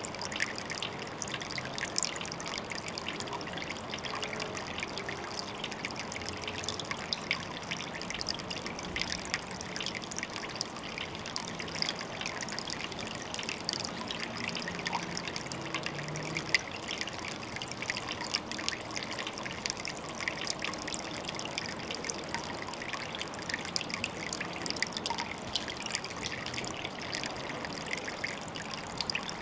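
Water trickling steadily into a pond, a dense, even patter of small splashes with no change throughout.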